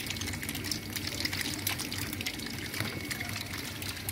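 Water trickling and splashing in a shallow recirculating eel tank, with many small splashes and a steady low hum underneath.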